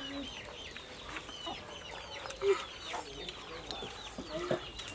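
Chickens calling: a rapid run of short, high, falling peeps, with a brief louder low sound about halfway through.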